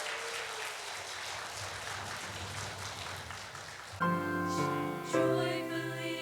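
Congregation applauding. About four seconds in, the applause gives way to a piano playing sustained chords, the start of an accompaniment.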